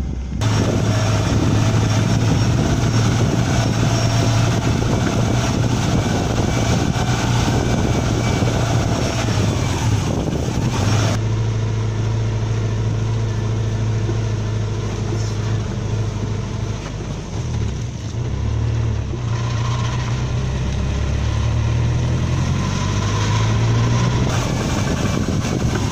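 1998 Subaru Forester's 2.0-litre boxer (flat-four) engine running at a steady low note under light load, mixed with tyre and road noise from the slow drive over grass and gravel. The engine note dips and then climbs again about 18 seconds in. From about 11 seconds in, the sound is picked up close to the front wheel, so the tyre noise comes through more.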